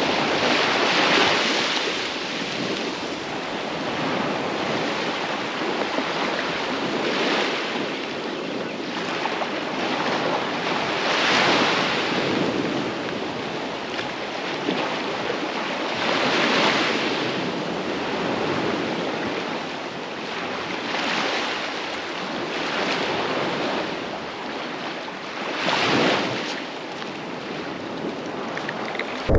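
Small waves breaking against jetty rocks and washing up a sandy shore, a louder wash of surf every few seconds.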